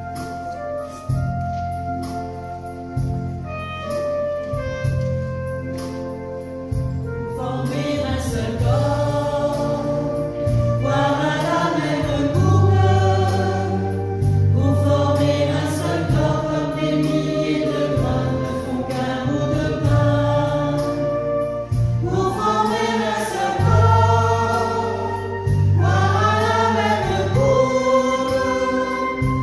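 An electronic keyboard plays a held, sustained introduction over a bass note repeated about once a second. About seven seconds in, a church choir begins singing a French hymn with the keyboard accompanying, and the singing continues to the end.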